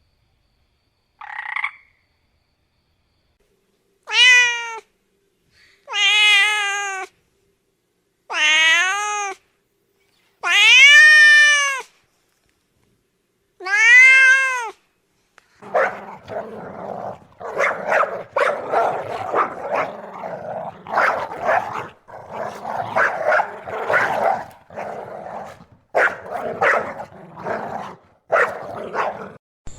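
A cat meowing five times, each meow about a second long and rising then falling in pitch, after one short call. About halfway through, a dense run of rapid, rasping animal calls takes over and lasts to the end.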